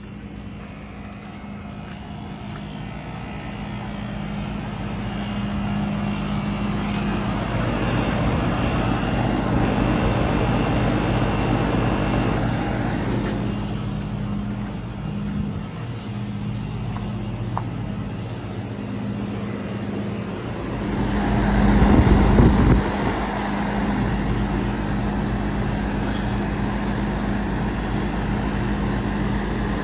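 Lennox outdoor air-conditioner unit running: a steady hum under the rush of its fan, growing louder over the first several seconds, with a louder rushing swell about three-quarters of the way through.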